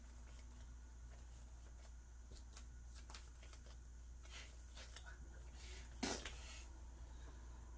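Faint handling of trading cards: a few soft clicks and slides of cards, the clearest about six seconds in.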